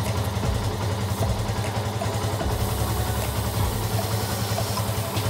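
Motorcycle engine idling steadily, in gear on its stand so the rear wheel and chain keep turning.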